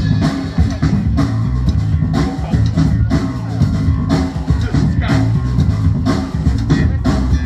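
Loud music with a heavy, steady drum beat.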